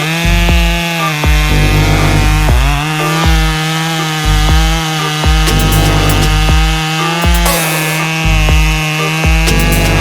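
Chainsaw running at full throttle while cutting wood, its pitch dipping briefly about two and a half seconds in and again near the end as the chain bogs in the cut, then recovering. Background music with a pulsing bass plays under it.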